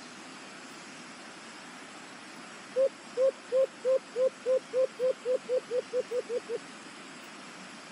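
White-eared brown dove (alimukon) calling: a series of about fourteen deep hoots that start about three seconds in, speed up and fade out. A faint steady hiss of forest background lies underneath.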